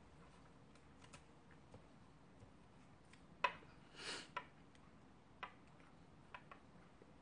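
Near-quiet room with a few scattered faint clicks and ticks, the sharpest about three and a half seconds in, followed by a short soft swell of noise.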